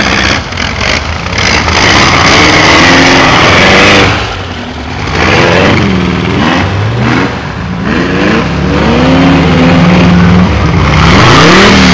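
Air-cooled 1600cc VW flat-four engine of a Baja Bug with a dual-pipe exhaust, revving up and down again and again as it drives over dirt humps. It holds a steadier note for a moment before revving again near the end.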